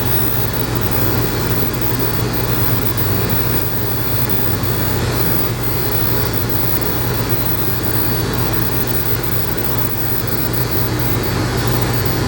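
Electric dog grooming clippers running steadily with a constant hum while being worked through matted fur on a dog's face.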